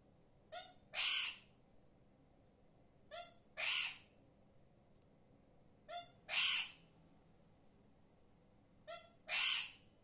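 Alexandrine parakeet giving harsh, crow-like calls, four times, about every three seconds; each call is a short clipped note followed at once by a longer harsh screech.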